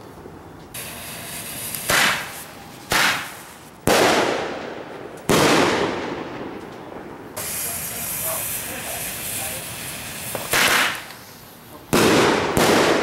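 Aerial fireworks bursting: about seven sharp bangs, each trailing off in a long echo, with a steady hiss under the first several.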